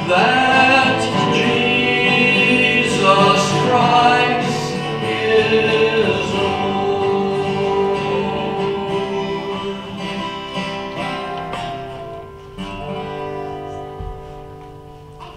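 Congregation singing a hymn to acoustic guitar accompaniment. The song winds down to a final held chord near the end.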